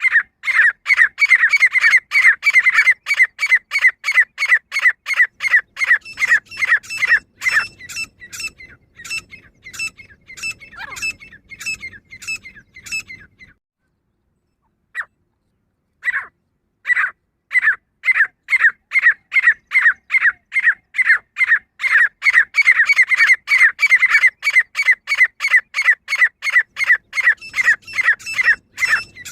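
Female grey francolin calling: a rapid run of short, high, repeated notes, several a second. The calls fade away about halfway through, stop for a couple of seconds, then start again loudly.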